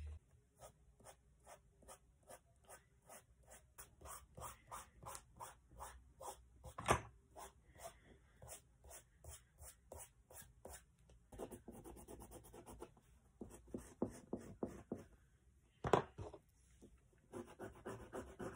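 Chalk pastel scratching on paper in quick, even strokes, about three a second. A sharper knock stands out twice.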